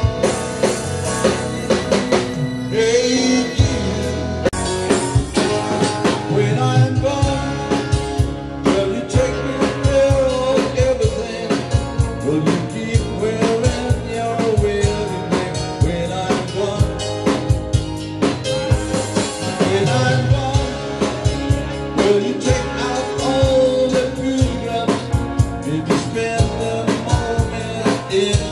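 Live band playing a song on electric guitar, electric bass, keyboard and drum kit, with a steady drum beat.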